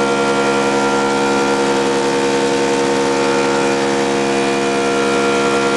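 Woodmaster planer/molder running under load as an MDF board feeds through, its wide reeding knife taking a big cut in one pass. A loud, steady machine hum that holds one pitch.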